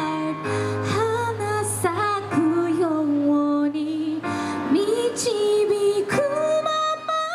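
Live pop-style song: a woman's voice singing a melody with long held notes over steady backing music.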